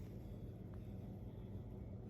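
Quiet room tone: a faint steady low hum, with one faint tick about three quarters of a second in.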